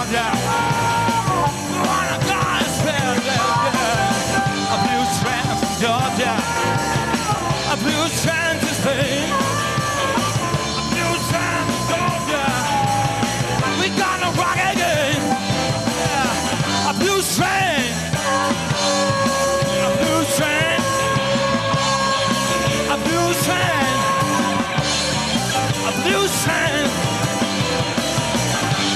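Blues-rock band playing live: electric guitar, bass guitar, keyboard and drums at a steady beat, with a male lead singer.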